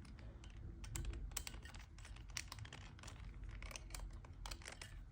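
A small screwdriver tightening the screws in a 3x3 Rubik's cube's core, with faint, irregular plastic clicks and ticks.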